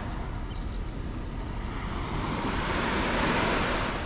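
Sea waves washing on the shore, one wave swelling and breaking about two and a half seconds in, with a steady rumble of wind on the microphone.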